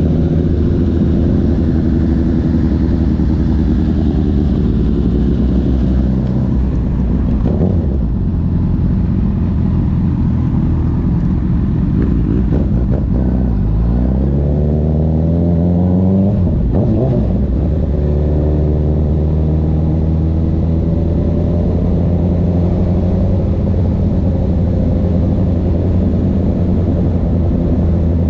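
Honda CB1000R inline-four with a CS Racing full exhaust system, ridden. Its engine note holds steady, drops about seven seconds in, then climbs steeply from about twelve seconds to a peak. It breaks off briefly near seventeen seconds at a gear change and settles back into a steady lower note.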